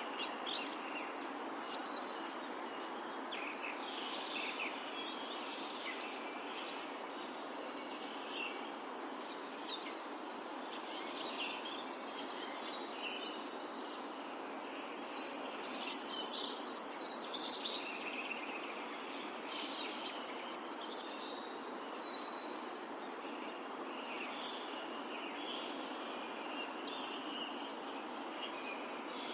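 Countryside ambience: the steady rush of a river in the background, with distant birds chirping and calling over it. A louder flurry of bird calls comes a little past halfway.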